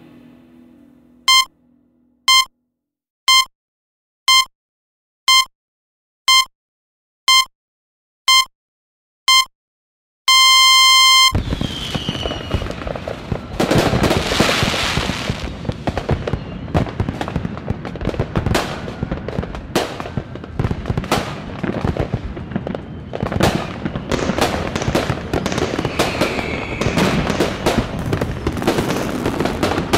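A countdown of nine short electronic beeps, one a second, ends in a longer beep: a New Year midnight time signal. Right after it comes a dense fireworks barrage over a city, with continuous crackling and bangs and a couple of falling whistles.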